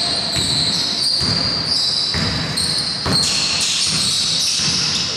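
Basketball being dribbled on a hardwood gym floor, about two bounces a second, echoing in a large hall, with high squeaks.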